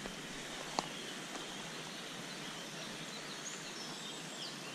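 Quiet outdoor ambience: a steady background hiss with a few faint, high bird chirps, and a single sharp click a little under a second in.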